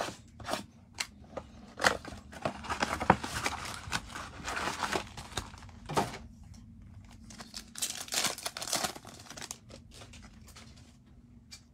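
Crinkling and tearing of packaging as a blaster box of football trading cards is opened: the wrapper and cardboard are torn and the foil card packs crinkle, in sharp, irregular rustles and clicks.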